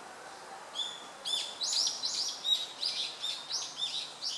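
Male Japanese sparrowhawk calling a rapid series of short, high, sharp notes, about four a second. It is calling the female off the nest to take the prey he has brought.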